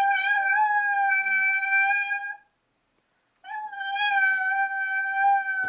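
Pet dog howling on cue: two long, steady howls, the second starting about three and a half seconds in.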